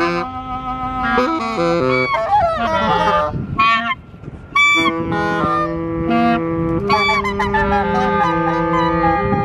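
Clarinet and other reed instruments improvising freely, holding long overlapping notes with gliding, bending pitches. A brief lull about four seconds in is followed by short, harsh honking squawks.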